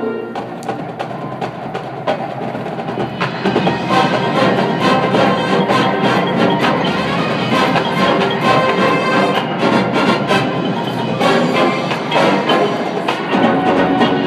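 Marching band playing: a held chord gives way to crisp percussion and front-ensemble mallet strokes, and the full band comes in louder about four seconds in.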